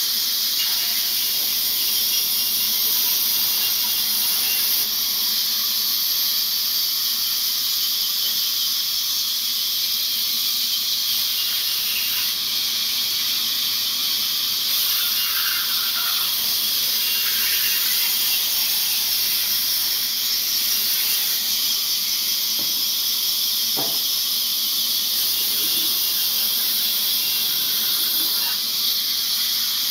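Large vertical band saw running, its blade sawing through logs with a steady, high-pitched hiss.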